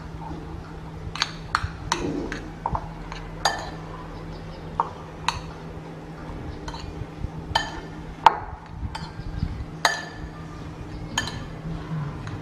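Metal spoon clinking against a ceramic bowl as raw egg is stirred into cooked rice: sharp, irregular clinks, over a dozen of them, some with a short ring.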